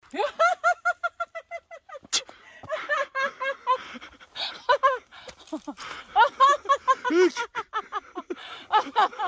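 A woman laughing and squealing in rapid, high-pitched bursts, opening with a quick run of even "ha-ha-ha" notes, then rising and falling cries. There is a sharp click about two seconds in.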